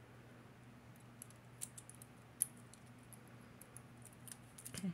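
Faint, scattered clicks and taps of metal costume jewelry being handled in the fingers, a clip-on earring and the rings on her hands knocking lightly together. One sharper click comes about two and a half seconds in.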